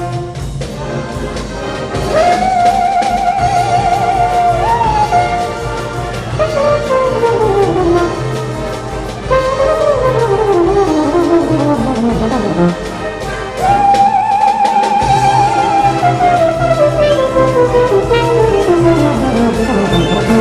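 Concert band playing New Orleans jazz, led by a solo trombone that holds long high notes and slides down in several long glissandi over the band's steady accompaniment.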